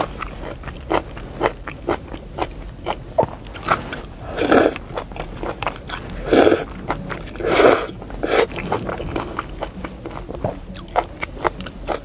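A person slurping and chewing chewy hand-pulled yellow noodles coated in sticky chili sauce, close to the microphone: wet chewing clicks and lip smacks throughout, with three longer, louder slurps in the middle.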